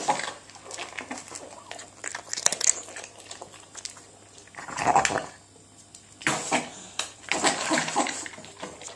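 A pug eating with difficulty: irregular bursts of noisy eating and breathing sounds with small clicks, the loudest about halfway through. Eating difficulty of this kind in a pug is a sign of brachycephalic obstructive airway syndrome (BOAS).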